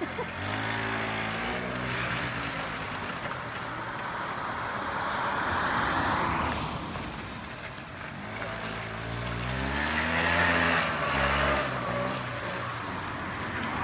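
Small engine of a homemade three-wheeled motor trike revving up and down as it is ridden, its pitch rising and falling near the start and again about two-thirds of the way through, fainter in between.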